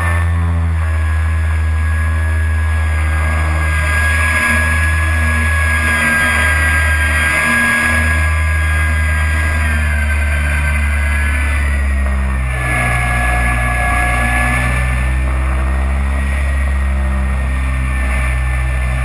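Wind rushing over an onboard camera on a four-motor electric RC flying boat, with the steady high whine of its four electric motors and propellers, which dips and rises briefly about ten seconds in. Music with a stepping bass line plays underneath.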